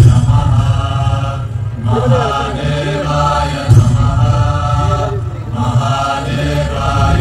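Devotional chanting in phrases over a steady low musical drone, part of the show's soundtrack. The chant breaks briefly twice.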